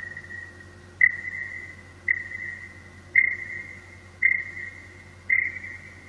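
A high pinging tone repeats about once a second. Each ping starts sharply and rings on, fading, until the next one begins. It is a slowed, echo-processed sound effect played back from audio editing software.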